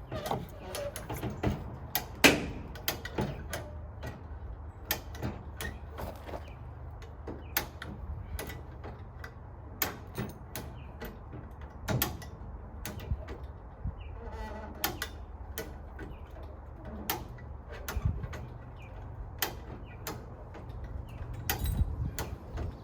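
Lifting gear clicking and clanking at an irregular pace, one or two sharp knocks a second, as a 1955 Chevrolet Bel Air body is raised off its frame, over a low steady hum.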